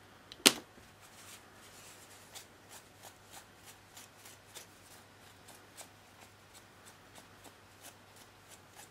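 Folded tissue dabbed again and again against a plastic scale tank model, soft light pats about three a second, lifting off excess enamel weathering wash. A single sharp click about half a second in.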